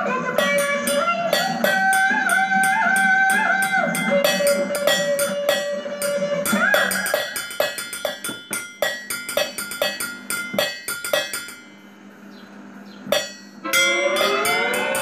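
Improvised drumming: sticks beating a fast rhythm on an upturned stainless-steel pot and a steel plate, along with a melody. About twelve seconds in the melody drops out for nearly two seconds, then returns with wavering, gliding notes.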